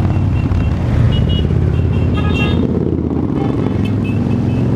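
Cruiser motorcycle engines running at low speed as a line of motorcycles rides slowly past close by, with a car among them. A short high-pitched tone sounds about two seconds in.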